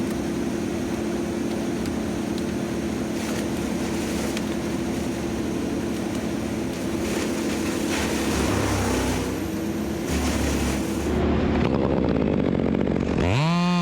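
An engine running steadily at low speed. Near the end a chainsaw revs up sharply to high speed and holds there with a wavering pitch.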